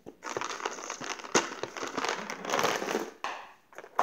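A hard plastic container handled right at the microphone: irregular scraping and crinkling rustle, with a sharp knock about a second and a half in, a brief pause near the end, then more rustling.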